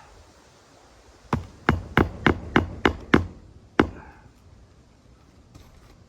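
Hammer driving a roofing nail through an asphalt shingle: about eight quick strikes, roughly three a second, with a short pause before the last.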